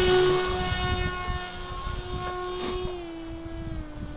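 Electric motor and propeller of a radio-controlled flying wing whining at a steady pitch as the plane climbs away after a hand launch, fading as it goes. The pitch drops slightly about three seconds in.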